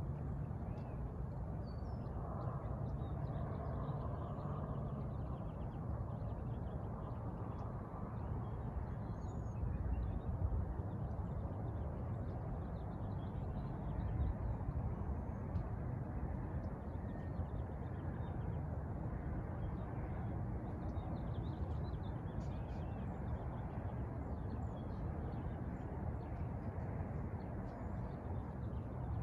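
Outdoor ambience: a steady low rumble with faint scattered bird chirps.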